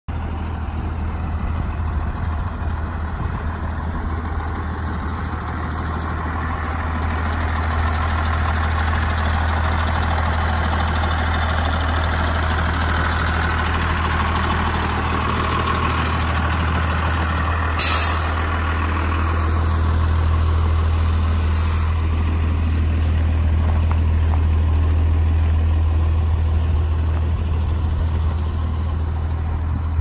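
1990 Blue Bird TC2000 school bus engine idling steadily with a low hum. A little past halfway a sudden burst of hissing air starts and lasts about four seconds.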